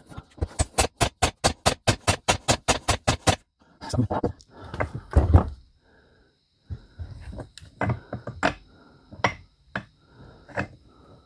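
A hammer taps rapidly on a socket set against a steel driveshaft yoke, about five metal-on-metal blows a second for the first three seconds, driving out a U-joint bearing cap. Then come scattered single knocks and clunks as the heavy driveshaft is shifted on the wooden bench.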